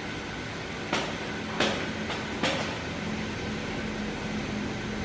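Gas stove burner running with a steady rushing hiss under a pot, with three short light knocks about one, one and a half, and two and a half seconds in.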